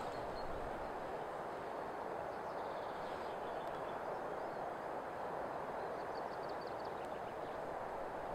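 Steady rushing open-air noise, even in level throughout, with a few faint high chirps in the middle.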